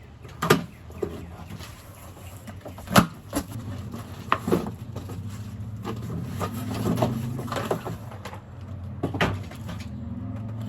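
Scattered knocks, clicks and rustles of a boxed corded electric chainsaw and its packaging being handled, with the sharpest knock about three seconds in, over a low steady hum.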